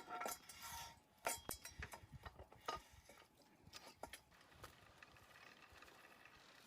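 A series of light knocks and clicks, densest in the first three seconds and then sparse and faint.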